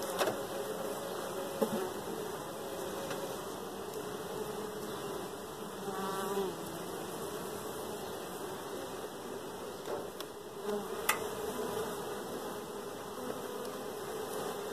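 Honey bees buzzing steadily around an open Langstroth hive, a continuous hum, with a few sharp clicks near the start and about eleven seconds in.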